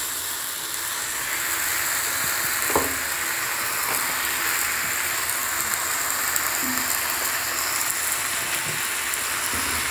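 Cauliflower stalks and vegetables sizzling steadily as they fry in hot oil in a wok, with one short knock about three seconds in.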